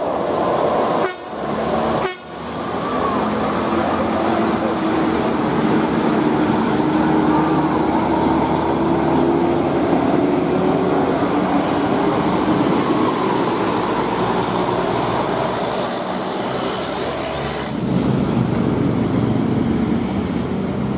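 Large tour bus passing on an uphill grade: engine and tyre noise, the engine note rising slowly as it pulls up the climb. A deeper rumble comes in near the end.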